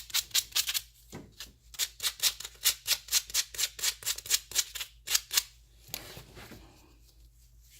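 Fine sandpaper rubbed back and forth by hand on a fuel fitting's washer sealing surface, in quick even strokes about four to five a second, clearing corrosion so the washer will seal. The strokes pause briefly about a second in and stop about five and a half seconds in.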